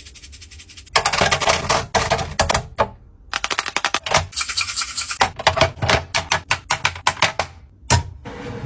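Rapid clicking and clattering of containers being handled and set into a fridge while it is restocked. The clicking starts about a second in, breaks off briefly, then runs on until shortly before the end.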